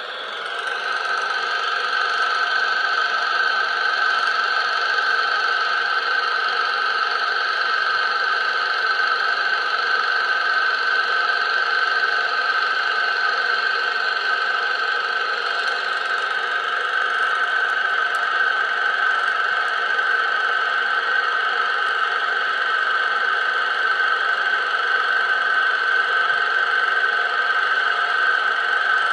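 A steady mechanical drone, fading in over the first second or two and then holding at one pitch throughout, like an engine running.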